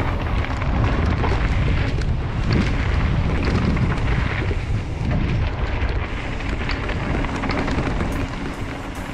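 Wind buffeting the microphone and a mountain bike's tyres rumbling over a dirt trail at speed, with scattered small clicks and rattles from the bike.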